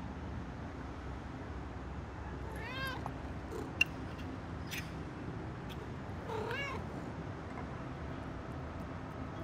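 A domestic cat meows twice, about three and a half seconds apart, each call rising then falling in pitch, over a steady low background hum. A single sharp click, the loudest sound, comes about a second after the first meow.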